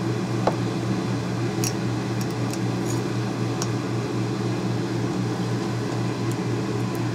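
Steady machine hum, such as a fan or kitchen appliance running, with a few faint small clicks over it.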